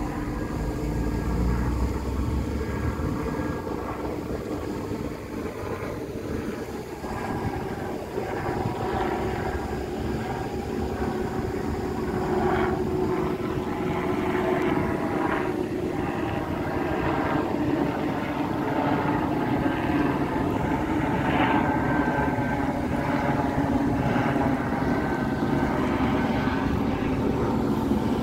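Helicopter flying overhead, its engine and rotor a steady drone that grows louder toward the end.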